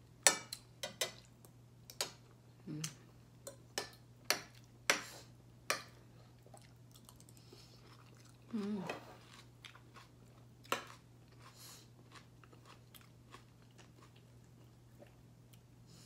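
A person eating close to the microphone: chewing and lip-smacking in a run of sharp clicks, dense for the first six seconds and sparse after. A hummed "mmm" of enjoyment comes about halfway through.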